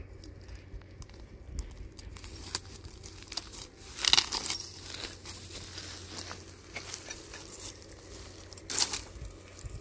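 Crackling, crinkling and rustling of something dry being handled, made of many small clicks, with two louder crunches about four seconds in and near the end.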